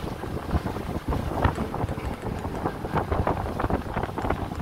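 Wind buffeting the microphone in uneven gusts aboard a small open boat under way, over the rush of choppy water.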